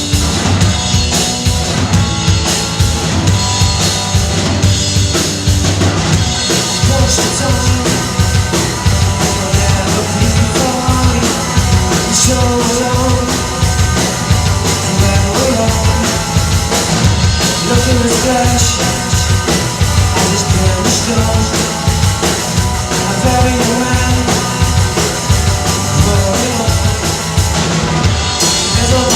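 Live rock band playing a song at full volume: a drum kit keeping a steady driving beat under guitars.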